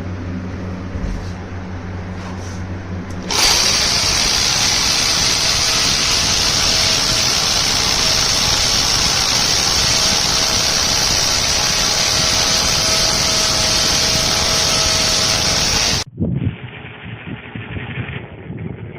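Hammerhead HAHD075 corded hammer drill's motor running at a steady high speed: a loud, even whine that starts abruptly a few seconds in and cuts off abruptly about twelve seconds later. A lower steady hum comes before it.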